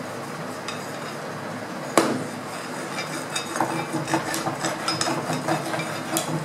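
A cleaning stick is worked inside an air rifle's steel compression cylinder: a single sharp knock about two seconds in, then a run of clattering, scraping clicks as the stick rubs and taps along the inside of the tube.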